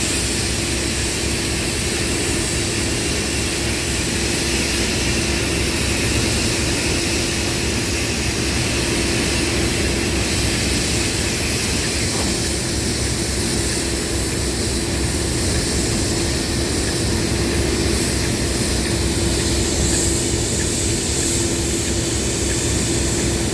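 Railway locomotive running steadily, a constant engine noise with a steady hum that does not rise or fall.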